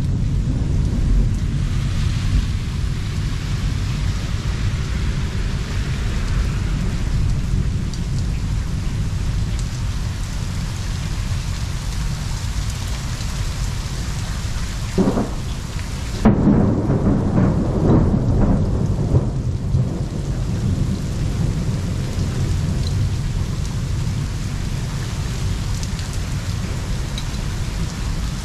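Thunderstorm: steady rain with a continuous low rumble of thunder. A louder, sharper peal of thunder comes a little past halfway.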